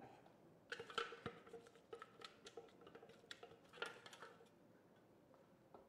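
Spatula scraping and tapping inside a stainless-steel Thermomix mixing bowl: a run of faint clicks and scrapes, some with a slight metallic ring.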